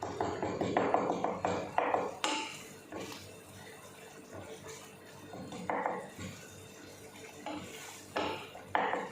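Metal utensil clinking and scraping against a cooking pot in quick clusters, busiest in the first two seconds and again near the end, with a quieter stretch between.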